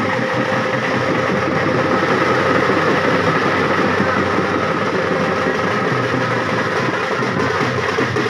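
Tasha drum played close by in a fast, continuous roll, with a large double-headed bass drum beating along; the drumming is loud and runs without a break.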